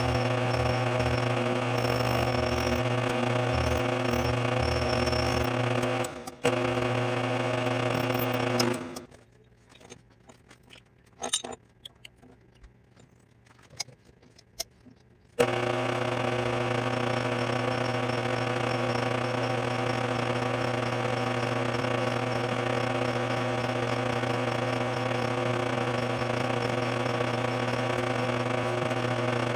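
A vertical milling machine runs steadily as its end mill makes the final cuts on a steel rifle extractor, giving an even motor hum. The hum cuts out about a third of the way in, leaving near silence with a few faint clicks for about six seconds, then starts again at full level.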